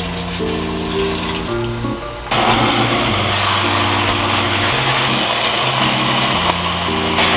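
Sauce and water sizzling and bubbling in a hot wok of glass noodles, a loud hiss that starts suddenly about two seconds in, over background music with a slow melody.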